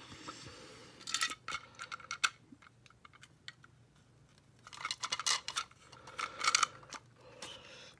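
Hard plastic clicking and rattling in several short bursts as two yellow plastic duck-shaped toy wagons are handled and pressed together to snap them into a train.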